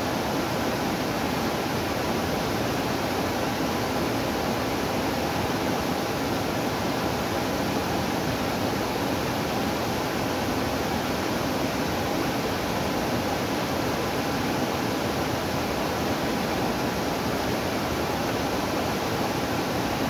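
Small waterfall pouring over rocks into a pool: a steady, unbroken rush of falling water.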